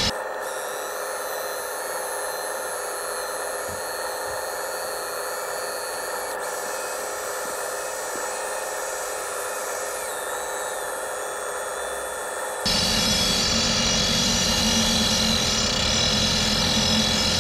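Small electric motor of a model rock-drill attachment running steadily as the bit bores into rock, a high, even motor whine. About three-quarters of the way through a deeper rumble joins and the sound grows louder.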